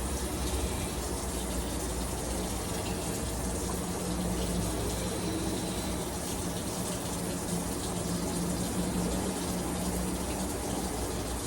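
Bone-in chicken thighs frying in melted margarine and onions in a pan, a steady sizzling hiss, over a low steady hum.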